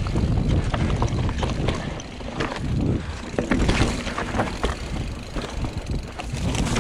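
Mountain bike riding fast down a loose, rocky trail: tyres crunching over stones and the bike rattling in many sharp clicks, over a steady rush of wind on the camera microphone.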